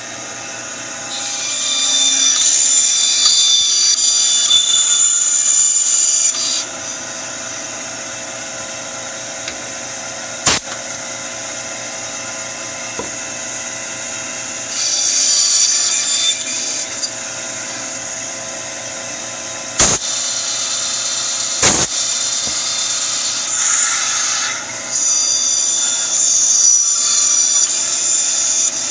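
Bandsaw running steadily, its blade cutting through wood three times while notches are sawn in a jig. Three sharp knocks come between the cuts.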